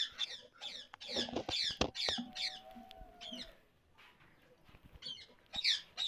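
Ringneck parrots calling: a quick run of short, harsh, downward-sliding screeches, about three a second, that die away about halfway through and return briefly near the end. A few light knocks come from the clay nest pot being handled.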